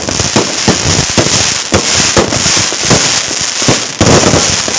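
A string of firecrackers going off in rapid, irregular bangs that run on without a break.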